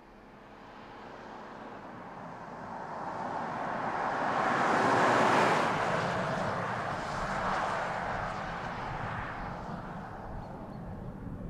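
Audi Q7 e-tron SUV driving past: a steady hiss of tyre and wind noise grows louder to a peak about five seconds in, then fades away.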